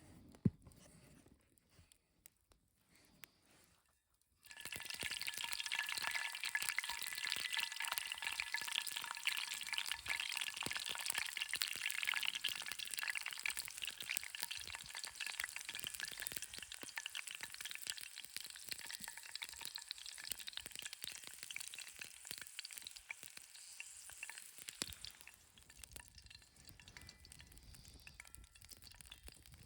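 Food dropped into hot oil in a frying pan, sizzling and crackling hard; the sizzle starts suddenly a few seconds in and dies down near the end.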